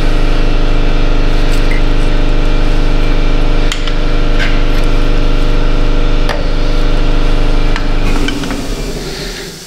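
An electric motor or machine running at a steady pitch, fading away over the last second or two, with a few short metallic knocks partway through.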